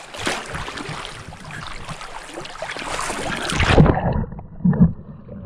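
Rushing, splashing river water close to the microphone. About four seconds in, the sound turns muffled and two low thumps follow.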